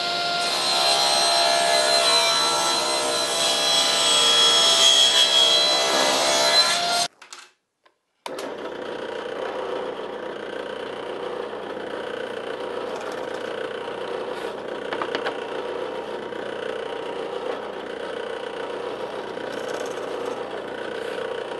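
A table saw cutting a board: a loud whine with many tones for about seven seconds that stops abruptly. After a second of silence, a bench drill press runs steadily with a low hum, its bit drilling into a wooden board, with a few sharp ticks partway through.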